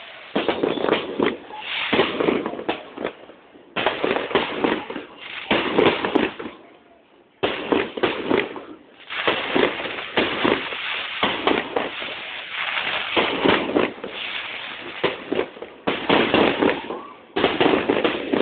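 Fireworks display: dense, rapid crackling and popping bursts in several long stretches, broken by short lulls a few times.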